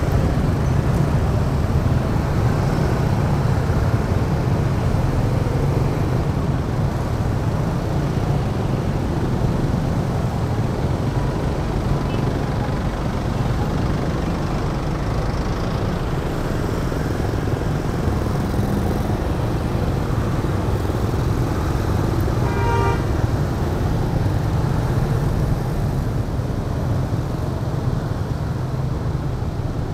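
Steady road traffic: motor scooters and cars running past on a busy road. One short vehicle horn toot sounds about three quarters of the way through.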